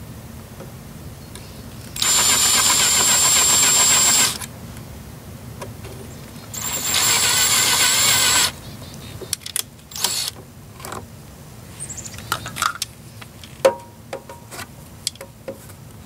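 Cordless drill running in two bursts of about two seconds each, drilling screw holes through the wall of a plastic battery box. Several light clicks and taps of handling follow.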